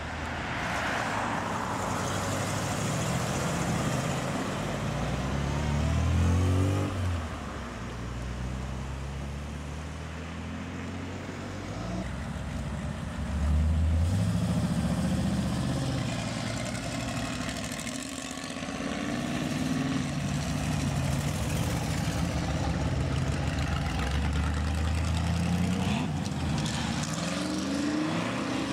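Custom and classic American cars driving off one after another, each engine accelerating past and rising in pitch. A black 1932 Ford-style coupe hot rod makes the loudest surge, about fourteen seconds in, and a third-generation Chevrolet Camaro pulls away near the end.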